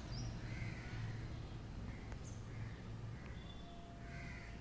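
Crows cawing faintly several times in the background, over a low steady hum, with a couple of light clicks.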